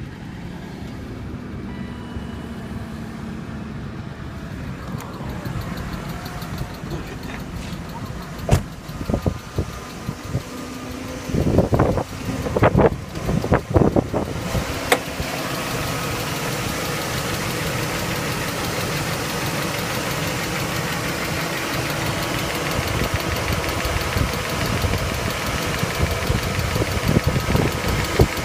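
BMW 740iL V8 engine idling with a fast tick from the valve lifters (hydraulic tappets). A few loud knocks come through about halfway in, after which the engine sounds louder and brighter.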